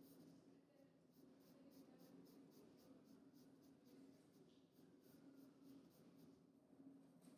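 Faint scratching of a charcoal stick on paper in quick, short repeated strokes, over a low steady hum.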